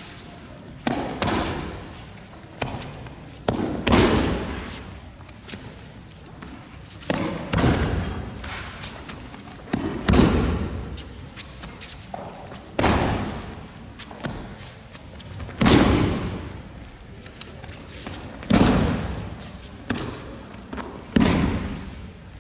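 Repeated thuds of bodies slapping onto aikido mats as the partners are thrown and take breakfalls, about every two to three seconds, each followed by a short echo that dies away.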